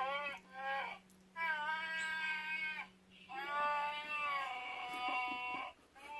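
Chewbacca's Wookiee roar sound effect, played back as a series of long calls that waver in pitch, with short breaks between them; the longest run for about one and a half to two seconds.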